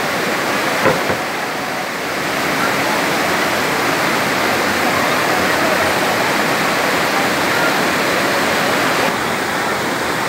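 Steady rush of a waterfall, water falling and splashing without a break; the high hiss softens slightly about nine seconds in.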